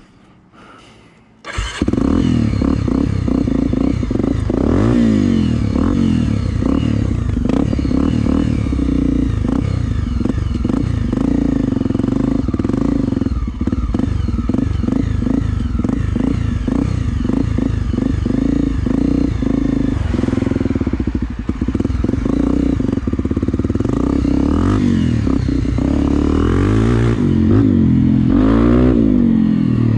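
Single-cylinder four-stroke trail motorcycle engine running under load as the bike is ridden over rough dirt, coming in abruptly about two seconds in, with the revs rising and falling several times, notably near the start and near the end. The riders say the engine is misfiring badly.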